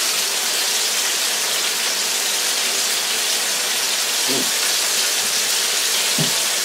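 Skinless chicken breasts frying in canola oil in a skillet, a steady even sizzle.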